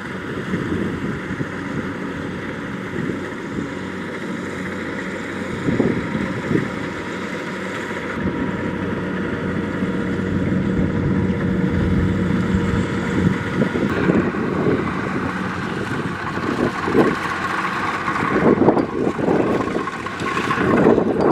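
Kubota DC-70 Plus rice combine harvester running steadily with its diesel engine and threshing machinery, with wind buffeting the microphone. The sound grows harsher and a little louder about two-thirds of the way through, with some uneven knocks near the end.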